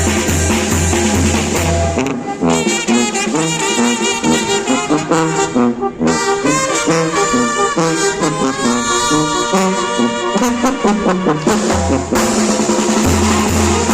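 Oaxacan village brass band (banda de viento) playing live. About two seconds in, the bass drum and percussion drop out and the brass and woodwinds carry the melody alone. The full band with drums comes back in near the end.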